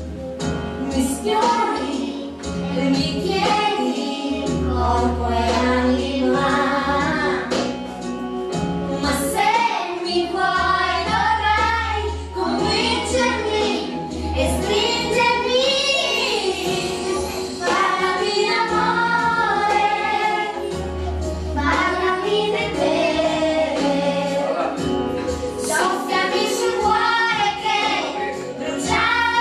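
Children's voices singing a song over backing music with a steady bass line.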